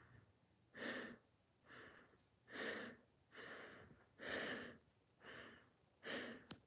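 A man breathing hard through a fabric mask during push-ups: four stronger breaths about every 1.7 s, with softer breaths in between.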